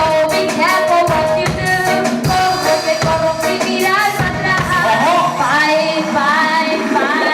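Reggae riddim with drums and bass, and a woman singing over it in gliding phrases.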